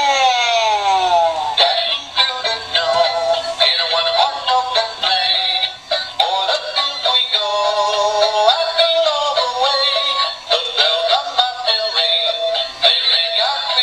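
A battery-powered Santa-on-the-moon Christmas ornament singing a Christmas song in its tinny electronic voice, from a small built-in speaker. It opens with a falling slide in pitch.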